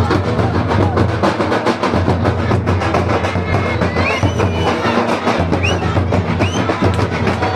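Loud, fast and steady drumming from a folk drum band of large barrel drums, with crowd voices mixed in.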